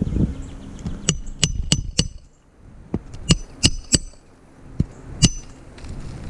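A series of about ten sharp metallic clinks, each with a brief ring. They come in two quick runs of four, then two single clinks near the end.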